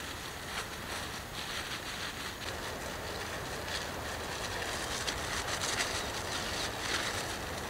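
A plastic bag crinkling in short, irregular spells as it is handled, mostly in the second half, over a steady hiss.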